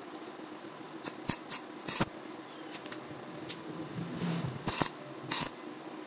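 Stick welder arc striking and catching in several short, sharp bursts as a bolt is tack-welded onto a bearing race stuck in a motorcycle wheel hub.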